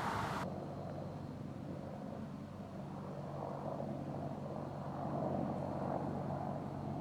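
Engine of a farm irrigation water pump running steadily at a distance, an even low hum.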